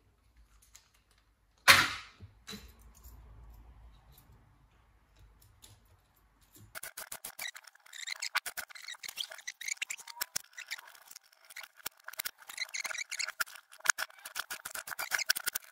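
Laptop being put back together by hand: a single sharp knock about two seconds in, then from about seven seconds a dense, irregular run of small plastic clicks and rattles as parts are fitted.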